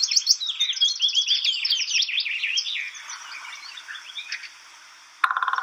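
Recorded birdsong: a dense run of quick, high chirping notes that fades out after about three seconds. A short pitched sound comes in near the end.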